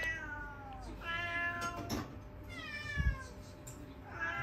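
Domestic cats meowing, about four meows in a row, each sliding down in pitch, while they beg for the food being cooked. A soft low thump about three seconds in.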